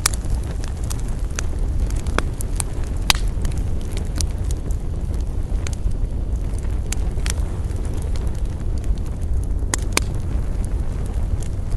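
Wood campfire crackling: irregular sharp snaps and pops, a few louder ones around three and ten seconds in, over a steady low rumble.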